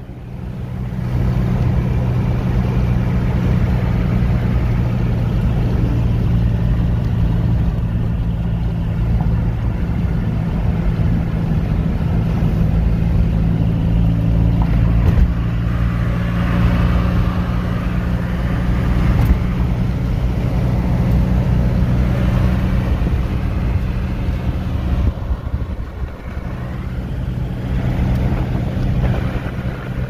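A car driving at a steady speed, heard from inside the cabin: a constant low engine drone over road noise.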